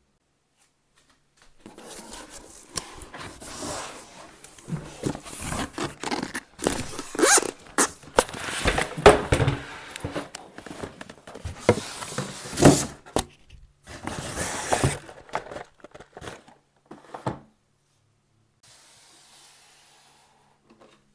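Cardboard box and foam packing blocks rubbing, scraping and rustling as a portable power station is pulled out of its box, with several sharp knocks along the way. The handling stops about three quarters of the way through.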